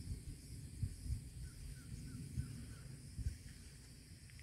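Outdoor ambience with an uneven low rumble of wind on the microphone and a faint steady insect hiss; a bird chirps a quick run of about six short notes a little over a second in.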